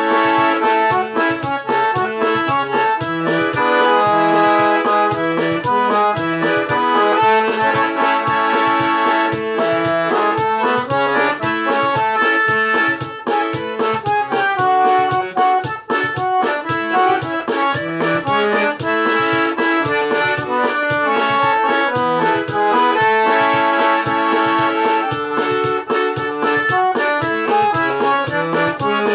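Sanfona (Brazilian accordion) playing an instrumental tune: a busy melody over a steady, rhythmic bass-and-chord accompaniment.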